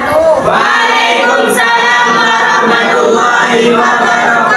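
Singing by several voices together, held notes that slide gently, with no steady beat.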